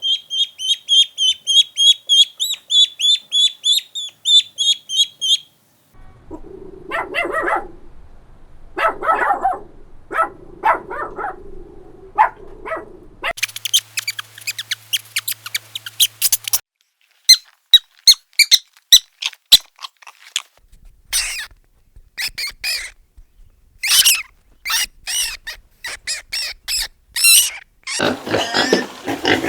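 Farm animals calling one after another in separate short clips. The first is a rapid run of high, squeaky chirps lasting about five seconds, followed by lower calls and then a series of sharp, short calls and clicks.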